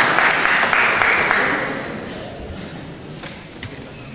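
Audience applauding, the clapping dying away over the first two seconds, leaving a lower background of the crowd with a couple of sharp clicks.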